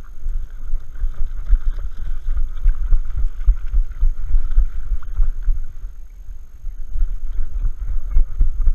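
Irregular low rumbling and buffeting on a camera strapped to a dog's back: wind on the microphone and the housing being jostled as the dog moves. The rumble dips for a moment about six seconds in, then picks up again.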